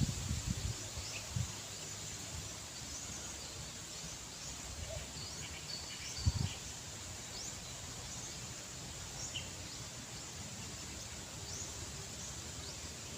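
Outdoor ambience: a steady background hiss with faint, short, high chirps scattered throughout, and a few low thumps near the start and about six seconds in.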